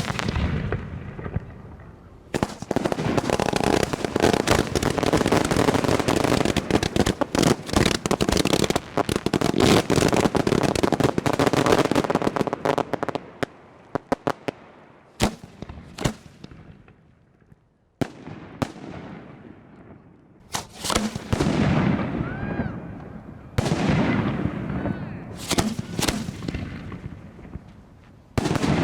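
Display (1.3G) fireworks show: rapid barrages of shell bursts and bangs, with a sparser stretch of a few single loud reports in the middle, then another dense barrage near the end.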